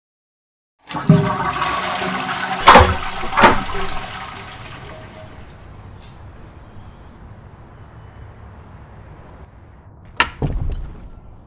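A toilet flushing: a loud rush of water that starts about a second in and fades over a few seconds into a quieter steady hiss. A sharp knock about ten seconds in.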